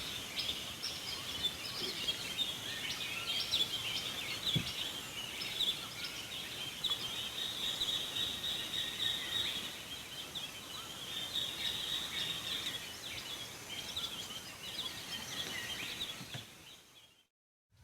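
A dense chorus of birds chirping and calling, with a steadier high trill in the middle, fading out near the end.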